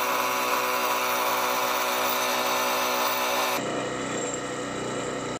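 Milling machine's end mill cutting into a block of aluminium, a steady, loud mix of motor whine and cutting noise. About three and a half seconds in it cuts abruptly to a different, lower machine hum from a mini metal lathe running.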